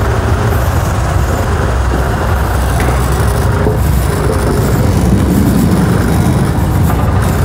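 Steady wind rush and engine noise from a Yamaha NMAX scooter under way, the wind buffeting the microphone.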